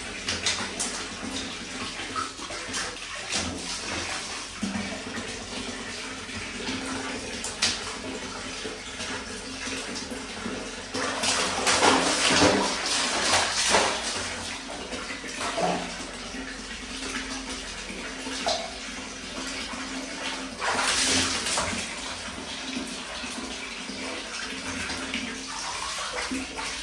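Water from a wall tap pouring into a plastic basin of water, splashing steadily. It grows louder for a few seconds near the middle and again about three quarters of the way in.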